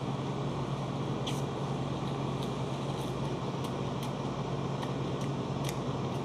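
Steady low hum of air-conditioning or refrigeration machinery, with faint scattered mouth clicks from someone chewing food.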